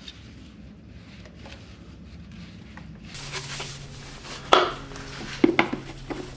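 Faint soft handling sounds under the car. Then a low steady hum, with sharp hard-plastic knocks about four and five seconds in as a plastic funnel is set into the engine's oil filler neck.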